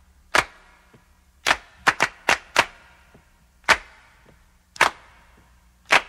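A series of about nine sharp cracks at irregular intervals, several in quick succession around two seconds in, each dying away quickly.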